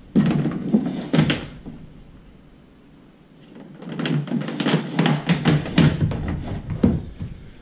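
A fishfinder transducer cable is pulled through a hole in a hollow plastic kayak hull: a clatter of small knocks and rubbing against the plastic. It comes in two spells, in the first second or so and again from about four to seven seconds in, with a quieter gap between.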